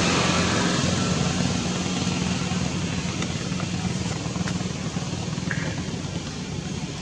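A motor running with a steady low hum, slowly fading away.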